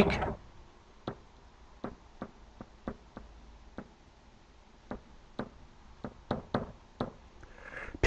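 A pen tapping and stroking on a whiteboard as a word is written out by hand: a dozen or so faint, sharp taps at irregular intervals, one for each stroke of the letters.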